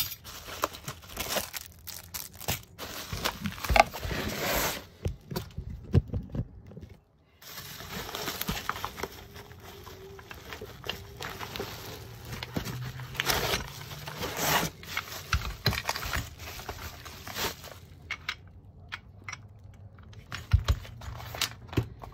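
Bubble-wrap packaging crinkling and rustling as a keypad door lock is pulled from its box, in irregular crackles with a short pause about seven seconds in.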